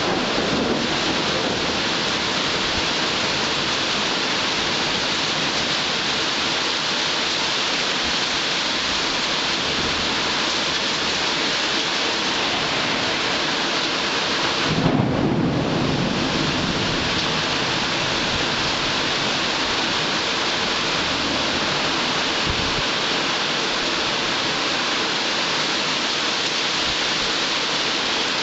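Heavy rain falling in a thunderstorm, a steady dense hiss. About halfway through comes a brief low rumble of thunder.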